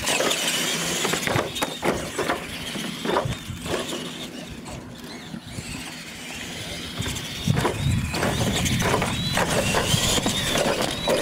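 Radio-controlled Clodbuster-style monster trucks racing on a dirt track: electric motors whining, tires scrabbling over loose dirt, and repeated sharp knocks as the trucks land off jumps and bounce.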